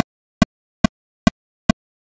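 Metronome clicking steadily at 141 beats per minute, a little over two clicks a second, every click the same strength.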